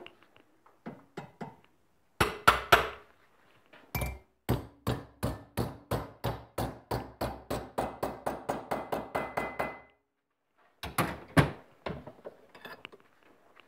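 Hammer blows on a metal bracket being beaten into shape at the workbench: a few quick strikes, then a steady run of about three blows a second for some six seconds, then two last blows.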